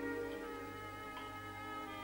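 Quiet orchestral background music, several long held notes sounding together.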